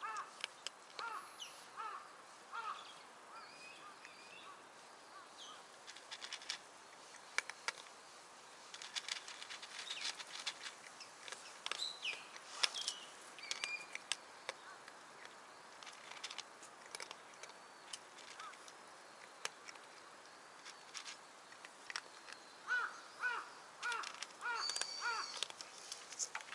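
Wild birds calling: runs of short, harsh, evenly repeated calls, about two a second, near the start and again near the end, with thinner higher chirps between them. Scattered light clicks fall in the middle.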